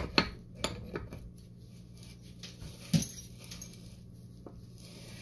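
Light metallic clicks and clunks, several in the first second and a louder knock about three seconds in, as a Mercury 4-inch nut tool is seated on the bearing carrier retaining nut in an outboard lower unit gear housing and turned to tighten it.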